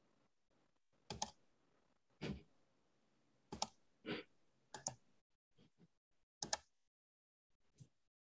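Irregular sharp clicks at a computer, about eight of them spaced roughly a second apart, over a near-silent room.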